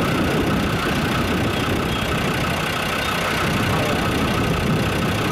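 A vehicle engine running steadily.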